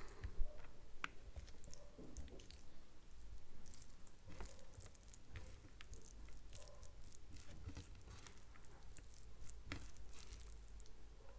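Close-miked eating sounds: chewing, with soft wet squishing and small clicks as rice and masala chicken are mixed and picked up by hand.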